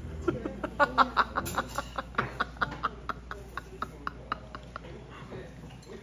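A person laughing in a run of short, breathy bursts, several a second, tailing off after about four seconds.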